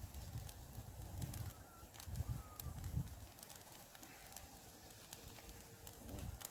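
Campfire crackling faintly in scattered sharp snaps, with low rumbling thumps during the first three seconds.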